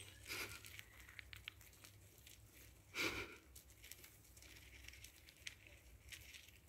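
Faint rustling and crackling of wood-shavings bedding as baby hamsters crawl and burrow through it, with one louder rustle about three seconds in.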